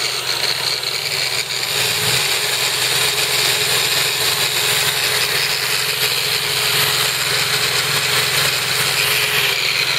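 Variable-speed electric buffer running off a Honda EU3000is inverter generator, with the generator's engine running under it. The buffer's high whir grows stronger about two seconds in as it is turned up to a higher speed, putting more load on the generator in eco mode.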